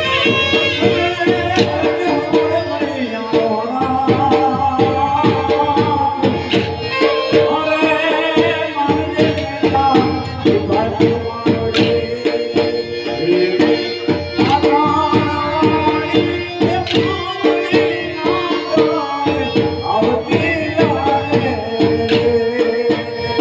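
Gujarati Maniyaro raas folk song: a male voice singing over fast, driving dhol drumming and a steady held drone note.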